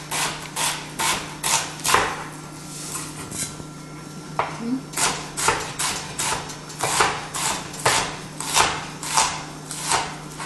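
Kitchen knife dicing onions on a cutting board: quick, even chops about two to three a second. The chopping stops for about three seconds after the first two seconds, with only a couple of light taps, then resumes.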